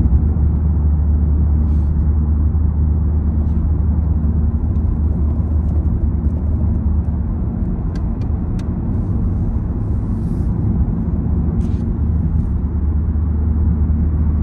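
Steady low rumble of tyres and engine heard from inside a car's cabin while it drives along a highway.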